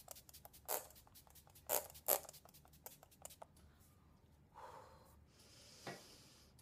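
MAC Fix+ setting spray, a finger-pump mist bottle, spritzed onto the face in several short hisses within the first two and a half seconds. A softer rustle and a click follow later.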